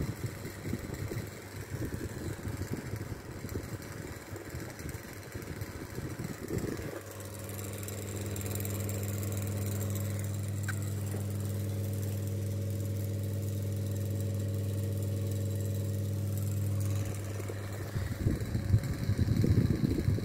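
Vintage Revelair desk fan running. Its air stream buffets the microphone with an uneven, fluttering rumble. For about ten seconds in the middle, a steady electric-motor hum takes over as the microphone comes close beside the fan, and then the fluttering air returns near the end.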